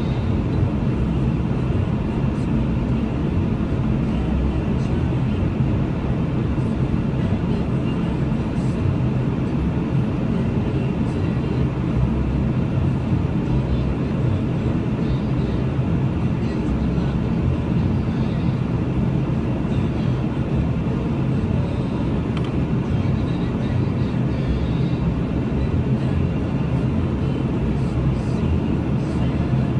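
Steady low rumble inside a car's cabin while the car idles at a red light.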